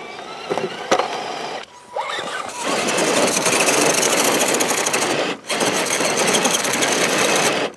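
Electric motor and gear drivetrain of a scale RC crawler truck running in a fast, even mechanical whir-rattle, loud from about two and a half seconds in, with a short break near the middle of that stretch.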